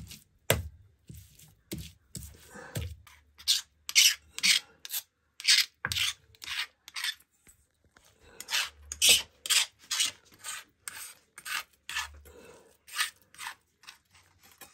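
Hand stone scraping back and forth over a flat grinding stone (Nepali silauto and lohoro) as a coarse paste is ground: a rhythmic rasping scrape, about two strokes a second, with a short pause a little past the middle.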